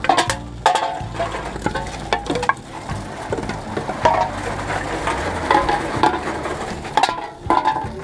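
Empty drink containers clattering and rattling in quick, irregular clicks as they are fed through a container-deposit recycling machine, with the machine's low hum running underneath.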